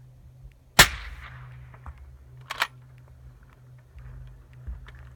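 A single suppressed rifle shot from a 6.5 Creedmoor Accuracy International AXMC fitted with a Thunder Beast Arms Ultra 9 suppressor: a sharp report with a short echo trailing off. About two seconds later comes a brief, sharp double clack.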